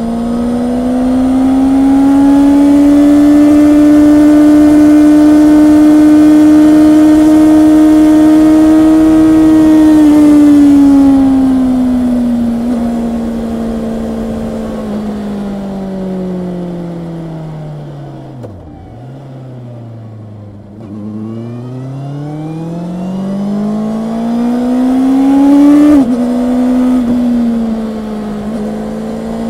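Honda CB650R's inline-four engine heard from the moving motorcycle: held at high revs for about the first third, then the revs fall steadily as the bike slows. The engine then pulls hard again, rising in pitch, and drops in one step on a gear change about seven-eighths of the way through before running on steadily.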